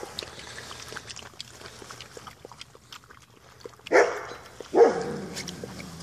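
A dog barks twice in quick succession about four seconds in, over faint small clicks and clinks from puppies eating out of a steel bowl.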